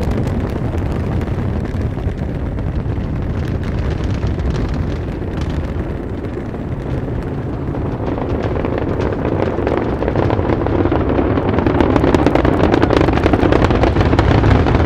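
Space Shuttle launch roar from the solid rocket boosters and main engines, heard from the ground: a deep, continuous rumble full of crackle that grows louder over the second half.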